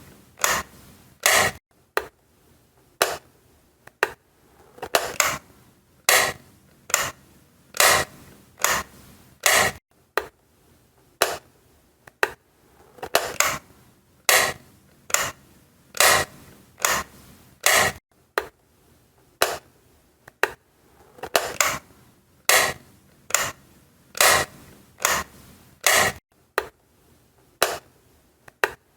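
Light switch clicked on and off over and over: sharp, short clicks about once a second, some coming in quick pairs.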